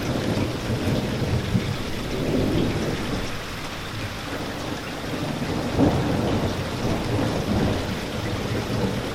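Steady rain with a low rumble of thunder throughout, swelling briefly about six seconds in.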